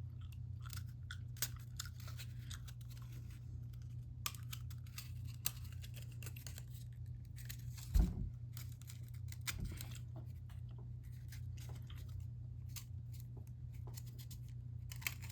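Cardboard model rocket parts being handled and slid together during a dry fit: faint scraping and rustling with scattered small clicks, and a soft knock about eight seconds in, over a steady low hum.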